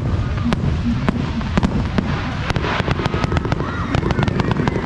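Fireworks going off in quick succession: many sharp bangs and crackles, several a second, over a steady low rumble.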